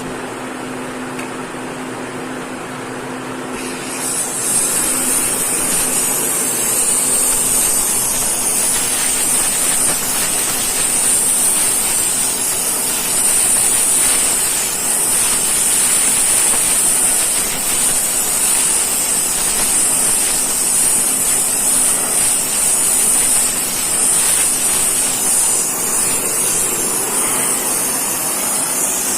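A loud, steady hissing noise starts abruptly about four seconds in and keeps going, easing slightly near the end. Before it, a steady machine hum.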